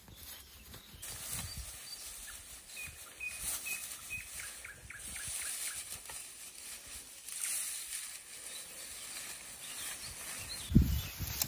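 Light rustling that swells and fades, with a short run of about four evenly spaced bird chirps a few seconds in and a single sharp thump near the end.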